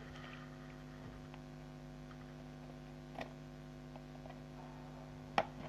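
Steady mains hum with a few faint clicks and taps as a cardboard figure box is handled and cut open with a small knife. There is a sharper click near the end.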